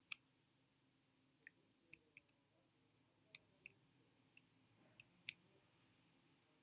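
Near silence: room tone with a few faint, scattered clicks, the clearest just after the start and about five seconds in.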